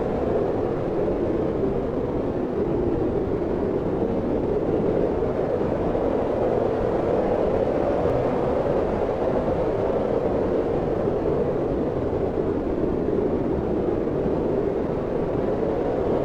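Steady wind blowing, a low, even rushing that swells and eases slowly.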